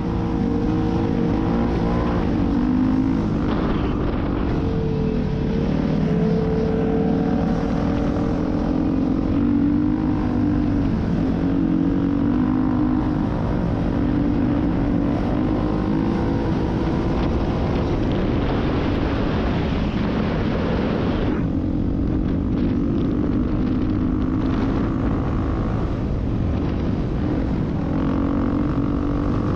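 Engine of an off-road machine running at speed across sand dunes, its note rising and falling a little with the throttle, under heavy wind rush on the helmet-mounted camera.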